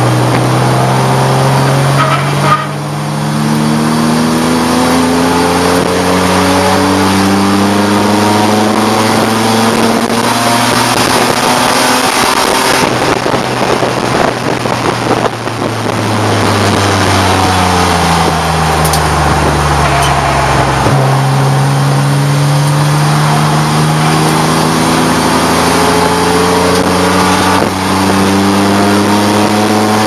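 Race car engine heard from inside the cockpit, loud: it climbs steadily in pitch under acceleration for about ten seconds, falls as the driver lifts off through the middle, then picks up again and climbs once more toward the end.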